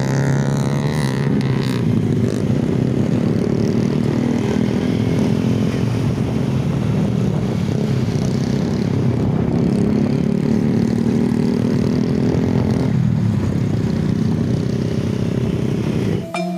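Several small motorcycles running together in a convoy at steady cruising speed, their engines a continuous drone with some wavering pitch in the first two seconds. Music cuts in at the very end.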